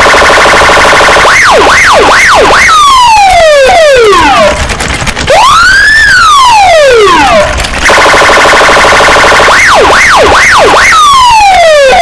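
Electronic car alarm running through its cycle of tones: a steady buzz, quick up-and-down chirps, falling whoops and one long rising-then-falling wail. The sequence starts over about eight seconds in.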